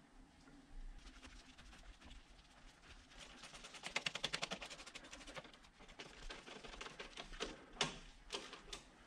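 Ratchet wrench clicking in a quick, even run for about two seconds, working a fastener at the thermostat housing, then a few single sharp clicks and knocks of tool on metal near the end.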